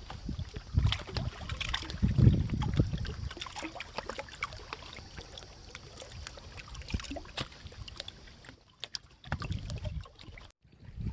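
Wind buffeting the microphone in gusts, heaviest in the first few seconds, over small splashes and trickling of river water. The sound cuts out briefly near the end.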